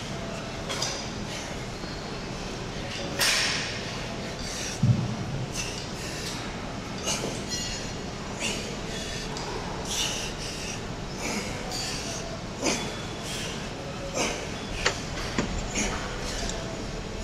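Weight-room background: a steady hum with scattered clinks and knocks of weights, and one heavy thud about five seconds in.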